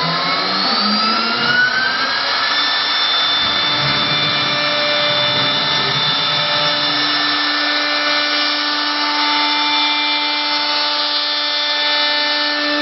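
Twin-spindle CNC router carving a wooden door panel: the spindle motor's whine rises in pitch over the first two seconds or so, then holds steady over the rasp of the bit cutting wood.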